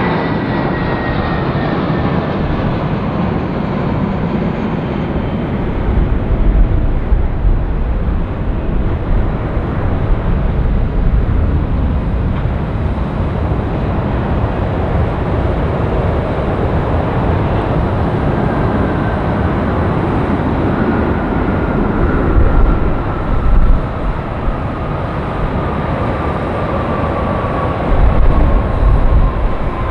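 Jet engines of a Boeing 747 freighter at taxi power, a steady roar with a high whine that slides slowly down in pitch over the last third. Low rumbling swells rise and fall under it a few times.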